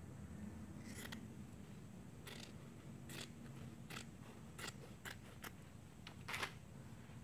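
Scissors cutting through a piece of fabric: a series of about nine short, quiet snips, irregularly spaced, from about a second in until near the end.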